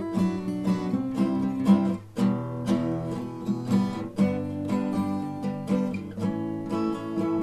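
Background music: acoustic guitar playing a brisk picked and strummed tune.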